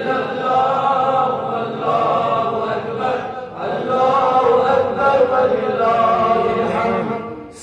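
Devotional chanting in long, drawn-out melodic phrases, several in a row with a short dip between them.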